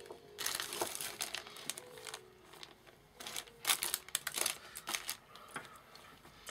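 Crinkly rustling of craft materials being handled by hand, in several irregular bursts, the loudest about three and a half to four and a half seconds in.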